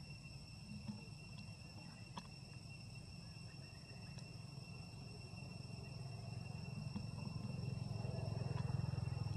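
Steady high-pitched drone of insects, with a low rumble underneath that grows louder over the last few seconds and a couple of faint clicks.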